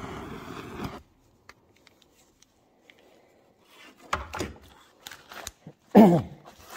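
Blowtorch flame rushing against the steel tube retort for about a second, then cutting off abruptly. After a near-silent stretch come faint ticks, a clunk about four seconds in, and a louder thump with a falling tone about six seconds in.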